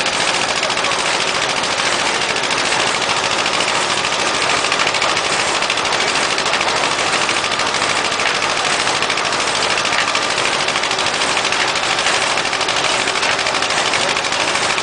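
Fahr vintage tractor's engine running steadily under load on a dynamometer test bench, with a fast, even rattle of firing strokes.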